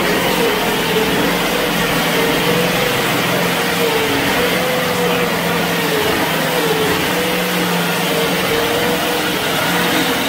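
The engine of a homemade tracked vehicle with wooden-slatted tracks running steadily under way, its pitch wavering slightly up and down.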